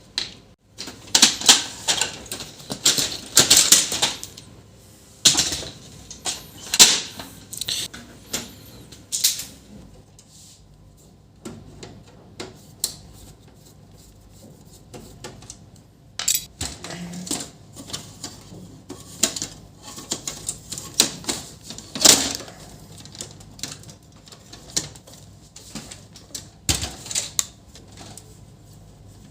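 Irregular clicks, knocks and rattles of plastic printer covers and parts being handled and opened during disassembly of an HP LaserJet Pro M501 laser printer, busiest in the first ten seconds and sparser after.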